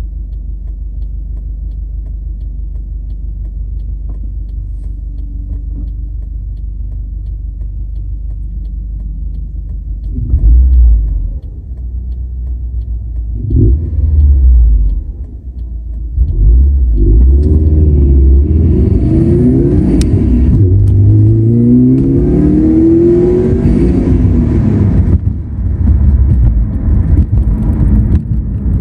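2016 Subaru WRX STI's turbocharged flat-four running steadily at low revs, then accelerating hard about halfway through with the engine pitch climbing repeatedly before easing off near the end. The car has a metallic whirring that the owner hears under acceleration and more when releasing the gas.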